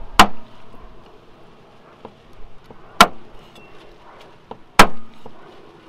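Meat cleaver chopping raw meat on a wooden cutting board: three sharp chops, just after the start, about three seconds in and near the end, with a few lighter taps between.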